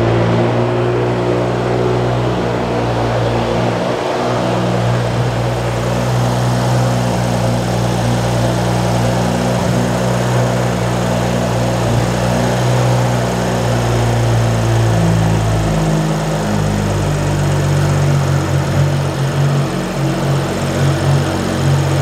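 BMW N55 turbocharged inline-six in a 2011 535i, straight-piped, idling steadily just after starting, now running smoothly with correct VANOS solenoids fitted: the misfire is gone.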